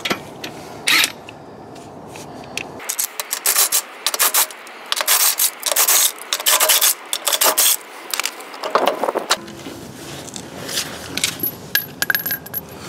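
Lug nuts being loosened and taken off a car wheel with a cordless impact wrench: irregular metallic clicks and scraping of the socket and nuts, densest in the middle.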